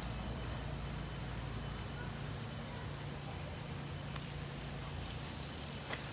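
A steady low mechanical hum of an engine or motor running, unchanging throughout, with a faint high whine over it. There is a short click about four seconds in and another near the end.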